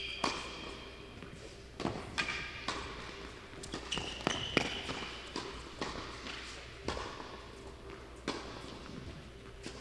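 Tennis rally: the ball is struck by rackets and bounces on the court, giving sharp pops about a second or so apart, with a brief high squeak near the middle.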